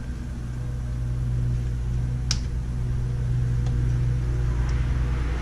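Steady low hum that grows slightly louder, with a single sharp click about two seconds in.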